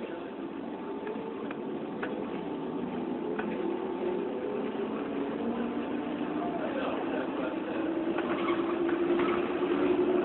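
A motor vehicle's engine running, a steady low drone that grows louder over the last few seconds.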